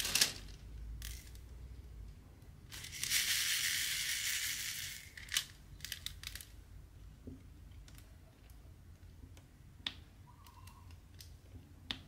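Diamond painting work with a drill pen and resin drills. A sharp click at the start, a crunchy rattle lasting about two and a half seconds, then scattered light clicks and taps as drills are picked up and pressed onto the canvas.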